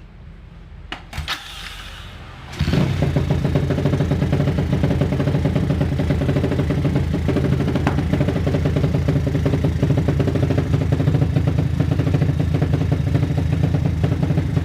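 A few clicks, then a Honda Tiger single-cylinder motorcycle engine fitted with a PWK Sudco 35 Airstrike carburetor catches about two and a half seconds in and keeps running steadily.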